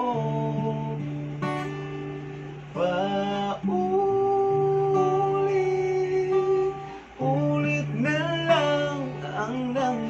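A man singing a slow ballad in long, held notes, over a strummed D&D Celestial II acoustic guitar.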